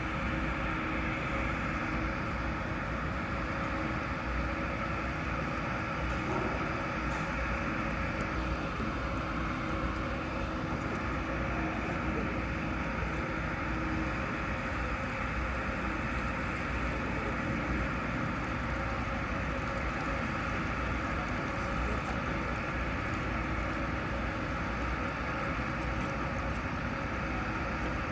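Steady mechanical hum of a large ship's machinery with a couple of faint constant tones over a broad rumble; one of the tones drops out about halfway through.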